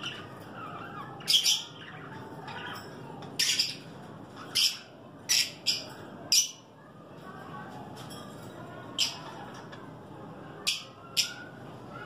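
Small caged parrots, blue masked lovebirds and budgerigars, giving about ten short, shrill chirps and squawks at irregular intervals, over a soft background murmur from the flock.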